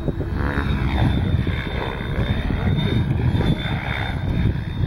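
Radio-controlled model helicopter in flight, its motor and rotor giving a steady high whine.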